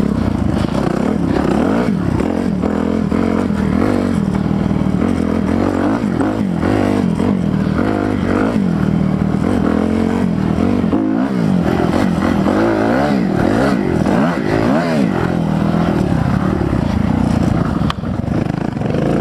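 Kawasaki KLX300R dirt bike's single-cylinder four-stroke engine revving up and down over and over as it is ridden over a bumpy trail of whoops. There is a brief dip in the sound near the end.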